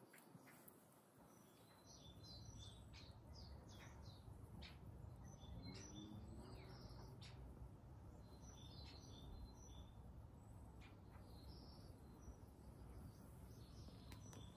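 Faint birdsong: small birds give scattered short, high chirps and calls throughout, over a faint low steady rumble that comes in about two seconds in.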